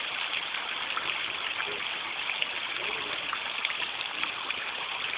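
Garden pond waterfall running, water splashing and trickling steadily into the pond.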